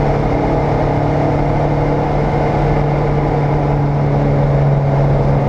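Race car's engine running at steady revs on track, heard from inside the caged cabin, holding a steady pitch over a haze of wind and road noise.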